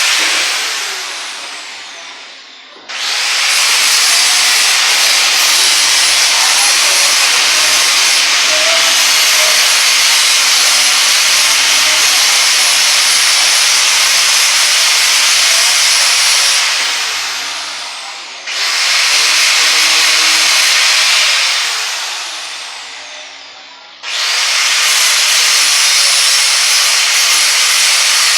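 Handheld electric power tool with a spinning disc or bit, run in long loud bursts that start suddenly. Each time it is released, it spins down over about two seconds with a falling whine. This happens at the start, again around two-thirds of the way through, and once more a few seconds later, before it is switched on again.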